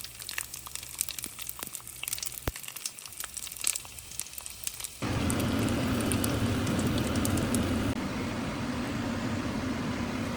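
Fish frying in hot oil, crackling and popping. About halfway the sound jumps abruptly to a louder, steady rushing noise with a low hum.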